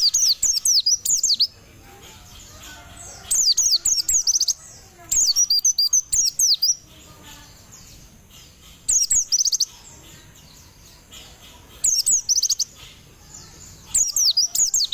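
A white-eye (pleci) singing in six bursts of rapid, high chirping notes, each lasting about a second, with short pauses between them.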